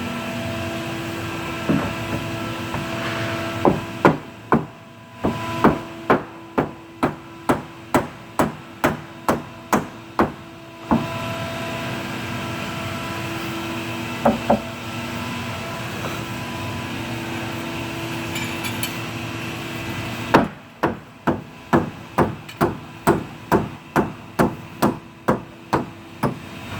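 Hammer blows knocking a table panel into place so it sits flush, in two runs of evenly spaced strikes about two a second with a pause between them. A steady hum runs underneath.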